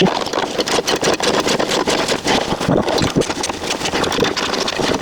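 A wrench rattling with rapid, irregular clicks as it runs down a bolt.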